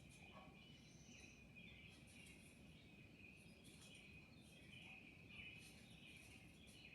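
Near silence with faint, repeated high chirps of small birds.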